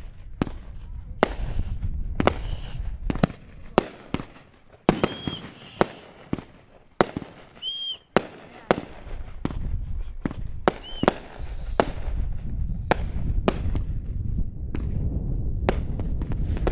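Fireworks going off in a rapid, irregular string of sharp bangs and crackles over a low rumble, with three short whistles in the middle.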